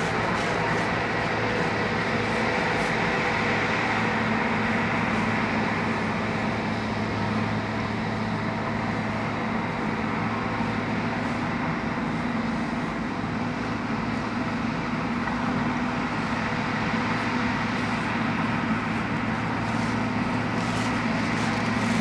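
Case crawler bulldozer's diesel engine running steadily under load as it pushes dirt, a constant hum with a few faint clanks near the end.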